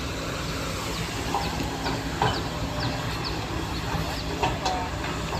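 Excavator's diesel engine running steadily at close range, with a few light knocks and short high squeaks over the low hum.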